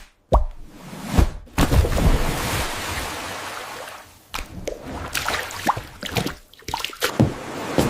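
AI-generated food ASMR sounds: wet squishes and crackly clicks, with a long hissing, sloshing wash starting about a second and a half in and fading over the next couple of seconds.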